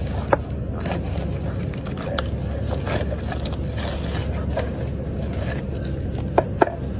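Crinkling and scraping of a clear plastic wrap being peeled off a paper cup of instant ginger honey tea, with scattered small clicks and two sharper clicks near the end, over a steady low background hum.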